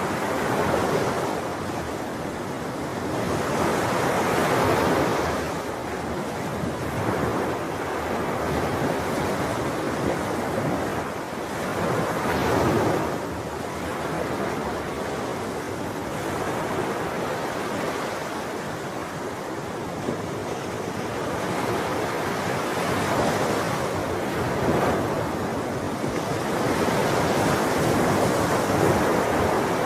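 Ocean surf: waves breaking and washing continuously, swelling louder every several seconds as a bigger wave comes in.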